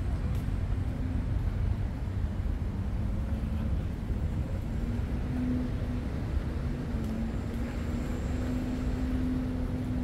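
Steady low rumble of city traffic, with a faint engine hum held through the second half.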